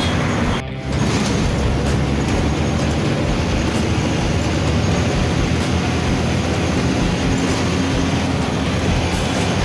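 Steady ride noise inside a moving city bus: engine rumble mixed with road and rattling noise, dipping briefly under a second in.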